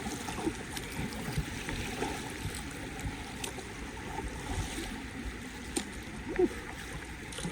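Steady rush of river water around a whitewater kayak, with a few faint splashes and knocks from paddle strokes.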